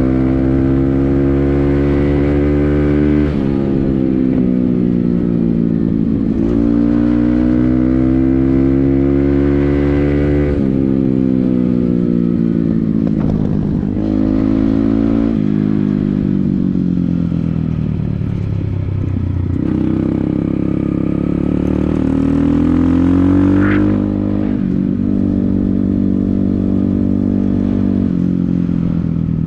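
Motorcycle engine under way, pulling through the gears: its pitch climbs, then drops back at each upshift, about half a dozen times. In the middle it falls away as the bike slows, then picks up again. A short high squeal is heard about three-quarters of the way through.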